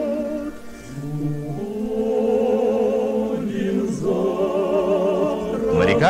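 A men's chorus sings long held notes with a wide vibrato, accompanied by a bayan (button accordion). The sound dips briefly about a second in, then swells again.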